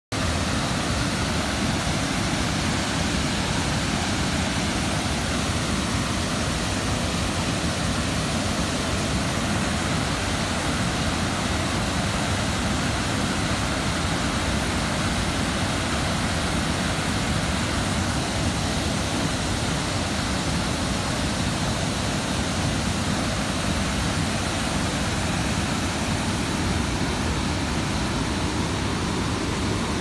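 Steady, unbroken rush of falling and fast-flowing water at the Manavgat waterfall, a wide, low cascade spilling over a rock ledge into the river.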